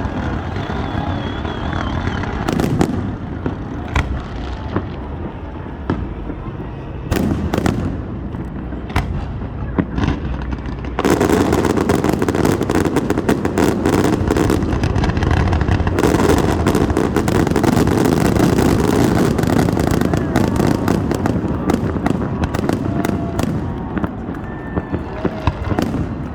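Fireworks going off: scattered sharp bangs for the first ten seconds or so, then a dense barrage of rapid bangs and crackling for over ten seconds, thinning out near the end.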